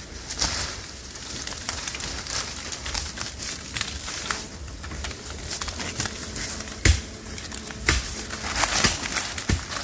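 A barefoot climber shimmying down a tree trunk: irregular rustling and scraping of clothing and skin against bark and vines, with scattered crackles and a few sharper knocks, the sharpest about seven seconds in.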